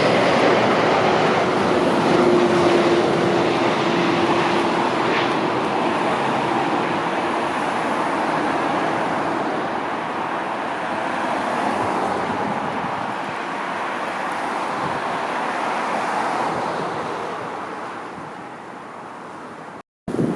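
Jet airliner engines, a heavy aircraft coming in to land, a loud steady rush that fades away over the last couple of seconds before cutting off abruptly near the end.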